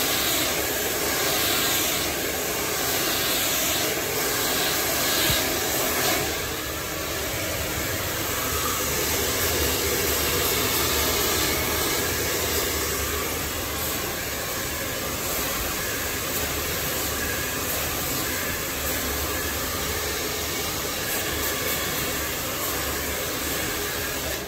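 Handheld hair dryer blowing a steady rush of air.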